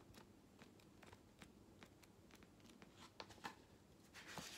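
Near silence: quiet room tone with faint, scattered small clicks and a soft rustle near the end.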